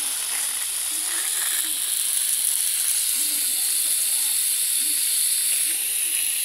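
Garden hose spray nozzle hissing steadily as a jet of water sprays onto leaf litter.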